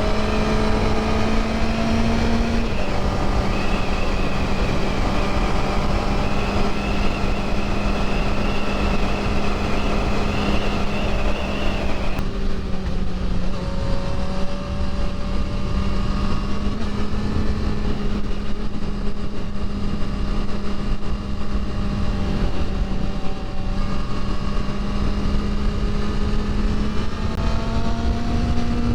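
Engine of a 1988 Honda CBR600F1 Hurricane, an inline-four, running at a steady speed on the move. Its pitch dips slightly about three seconds in and rises again near the end.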